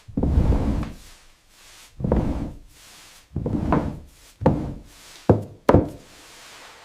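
A series of six dull, heavy thuds at uneven intervals, each dying away quickly, the last two close together.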